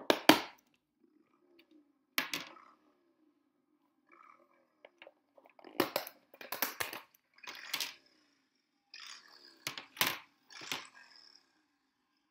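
Snap-lock clips of a plastic food container's lid clicking shut, two sharp clicks about two seconds apart. Then a run of rustles and knocks as thick fibrous insulation wadding is laid and pressed around the plastic box, over a faint steady low hum.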